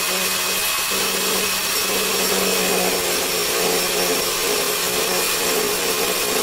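Handheld electric angle grinder (disc grinder) running steadily at full speed as its disc grinds into the plastic stem of a toothbrush head. It gives an unbroken motor hum over an even grinding hiss.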